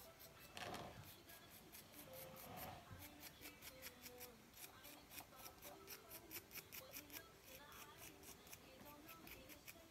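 Faint, quick scratching of a pointed modelling tool scoring the surface of a leather-hard clay bottle, short strokes several times a second. The clay is being roughened to make a join for an attached piece.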